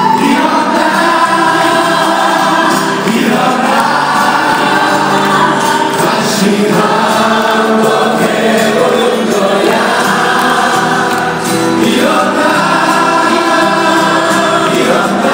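Several male singers singing a song together into microphones over a live pop band accompaniment.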